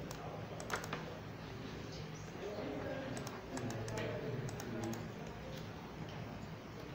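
Computer keyboard and mouse clicks tapping irregularly as a label is typed into a software panel and confirmed.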